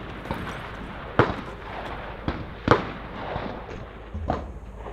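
Rifle shots fired at an uneven pace, each a sharp crack with a short echo. The two loudest come about a second in and just under three seconds in, with quieter shots between and near the end.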